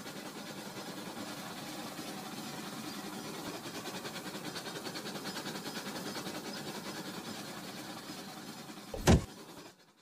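Battery-powered Rail King toy trains running on plastic track: a steady small-motor whir with a fast rattle of wheels on the track. A single sharp knock comes about nine seconds in, then the sound cuts off.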